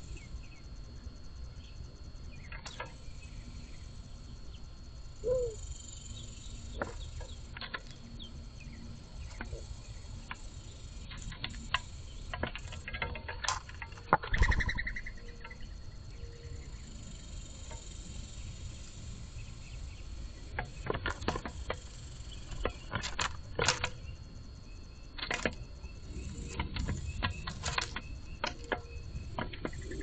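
Mourning doves and a northern cardinal feeding from a cardboard box of seed: scattered sharp clicks and taps of beaks on seed and cardboard, with a louder flurry of wing flapping about fourteen seconds in.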